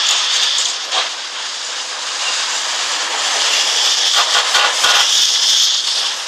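Demolition excavators breaking up a concrete building: a steady hiss of machinery with cracks and clatters of concrete being crushed and falling, about a second in and again around four to five seconds in.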